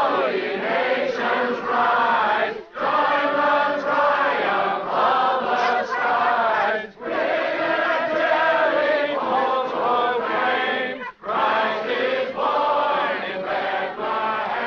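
A crowd singing a Christmas carol together in chorus, breaking for a short breath between phrases about every four seconds.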